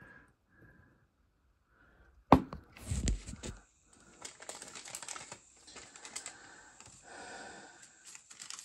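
Small plastic toy pieces and their packaging being handled: a sharp click a little over two seconds in, a low knock, then several seconds of rustling with many small clicks.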